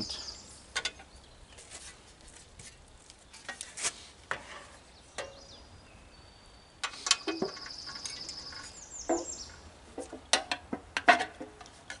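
Scattered clicks and knocks of a benchtop planer's plastic dust hood, metal parts and hand tools being handled and set down. A high, dry trill runs for about two seconds around seven seconds in.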